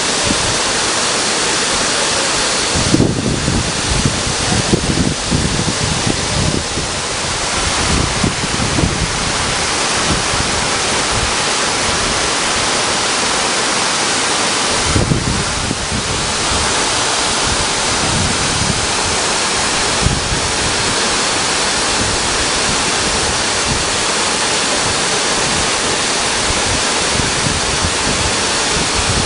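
Waterfall pouring with a steady, loud rush. Low rumbles on the microphone a few seconds in and again about halfway through.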